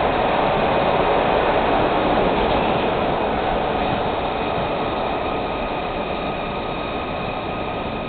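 Interior running noise of a 1982 Kawasaki B-IV subway car: a steady rumble and rush of wheels on rail that gradually gets quieter as the train slows into a station. Faint steady high tones come in near the end.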